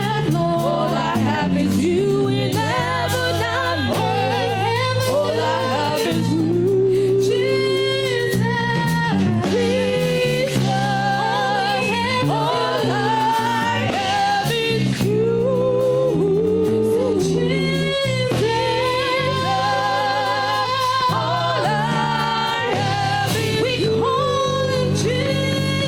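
Gospel worship music: a vocalist singing a wordless, melismatic line with vibrato over sustained keyboard chords.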